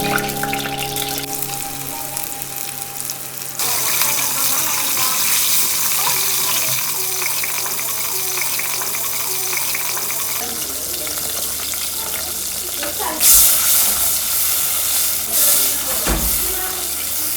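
Potatoes sizzling as they fry in oil in a pan, with stirring. The sizzle gets much louder about four seconds in and stays dense, with a couple of sudden changes in level later on.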